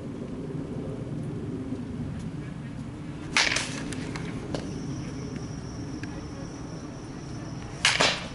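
Baseball bat hitting pitched balls: two sharp cracks about four and a half seconds apart, over a steady low hum.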